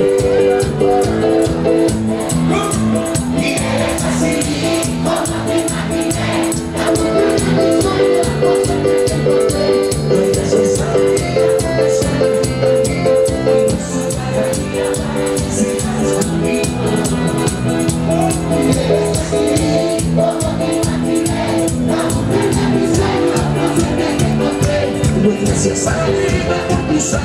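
Live band music playing steadily at full level: held pitched notes over a busy, driving rhythm.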